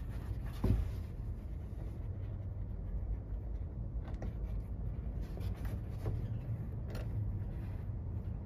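A few faint clicks and taps of hands fumbling a bolt into a hole in a truck topper's carpeted wall, spread through, the loudest about a second in, over a steady low rumble.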